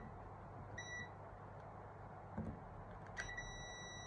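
Digital multimeter's continuity beeper: one short beep about a second in, then a steady beep from about three seconds in as the probes bridge the pendant's emergency-stop contacts. The tone signals continuity: the contacts are closed while the stop button is up.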